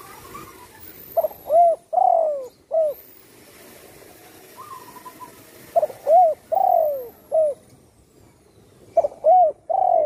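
Spotted dove cooing: three phrases of about four notes each, the third note longer and falling in pitch, a few seconds apart.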